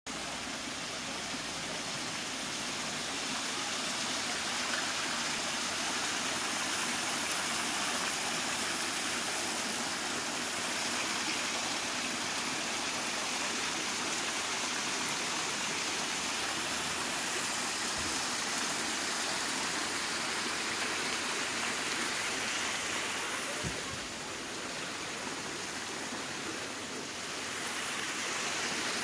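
Water splashing steadily down a small stone cascade fountain, a continuous rushing and pattering of falling water that eases slightly for a few seconds near the end.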